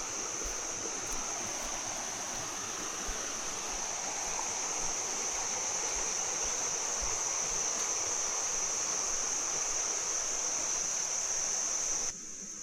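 Stream water rushing steadily, with a steady high-pitched insect drone over it. The water sound cuts off abruptly near the end.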